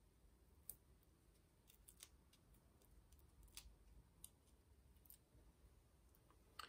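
Near silence broken by scattered faint, sharp clicks as fingers handle paper and press hexagonal foam adhesive dots onto a card.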